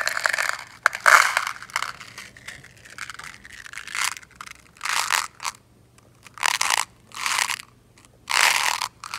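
Small Czech glass melon beads rolling and rattling inside a round clear plastic container as it is tilted, in a string of short bursts.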